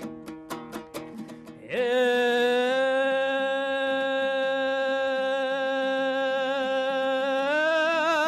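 Kazakh folk song: quick plucked-string accompaniment, then about two seconds in a voice takes up one long held sung note that stays steady and wavers into vibrato near the end.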